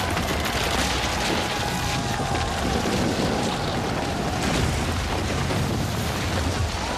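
Film soundtrack of carved temple stonework being pulled down on ropes: a loud, continuous rumble of collapsing stone, with music underneath.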